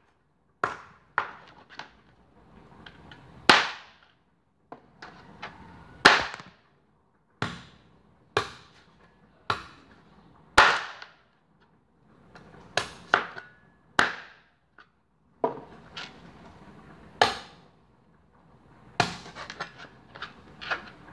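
Cleaver chopping pieces of cooked chicken on a plastic cutting board: sharp chops at an irregular pace, about one a second, with lighter knocks between and a quick run of them near the end.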